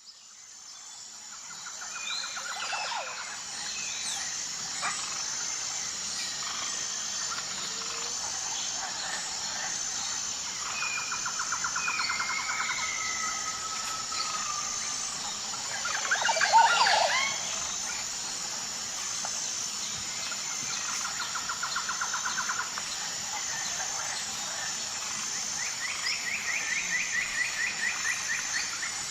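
Several wild birds calling and singing in rapid trills, with a louder cluster of calls about two-thirds of the way through, over a steady high-pitched whine. The sound fades in at the start.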